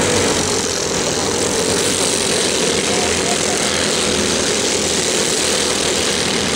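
A pack of dirt-track racing go-karts running at speed, their engines making a steady, continuous buzz.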